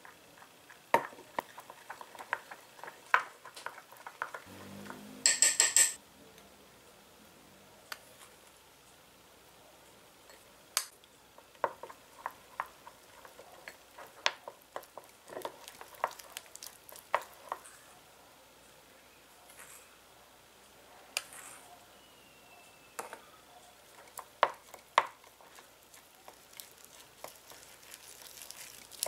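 A small spoon stirring flour into milk in a small glass bowl, with irregular sharp clicks and taps of the spoon against the glass as the dough is mixed. A brief louder burst of noise comes about five seconds in.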